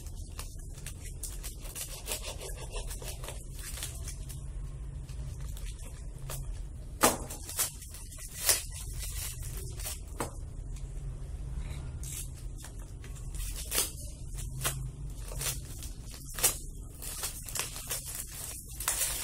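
Black plastic courier mailer being slit with a snap-off box cutter and peeled off a small cardboard box: scattered crinkling, scraping and sharp clicks, over a steady low hum.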